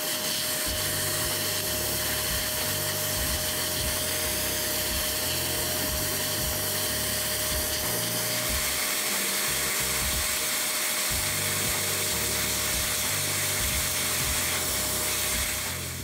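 Small handheld electric cleaner held at a laptop cooling fan, running steadily: a high-speed motor whine over a rush of air, used to clear dust from the fan. Background music with a bass line plays under it.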